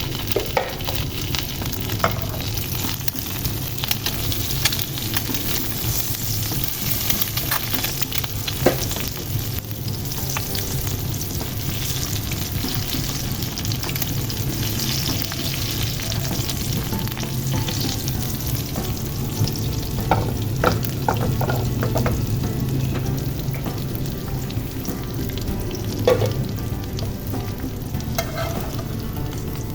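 Egg omelette frying in a pan, a steady sizzle with a few sharp clicks of a utensil against the pan, several in quick succession about two thirds of the way through.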